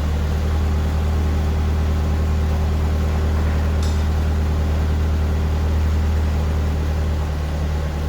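A heavy machine's engine running steadily at an even speed, with a brief faint click a little before the middle.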